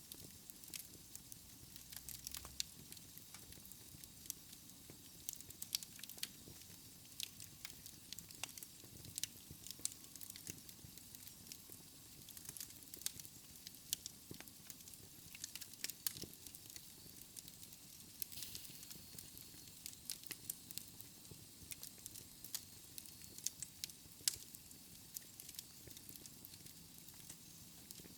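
Wood fire burning in a fireplace: irregular crackles and sharp pops from the burning logs over a soft, steady hiss.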